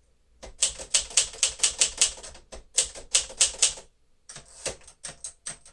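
1954 Smith-Corona Silent-Super manual typewriter being typed on: a fast run of sharp keystrokes, about five a second, for some three seconds, then after a brief pause a shorter, sparser run of strokes.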